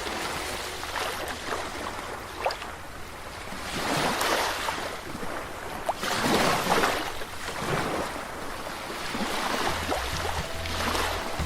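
Sea waves washing in, each surge swelling and fading about every two to three seconds.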